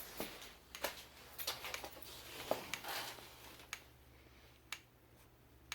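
Light clicks and handling rattles of an Edwards fire-alarm pull station being reset by hand. The clicks are scattered over the first few seconds, then it goes quieter with a couple of isolated clicks.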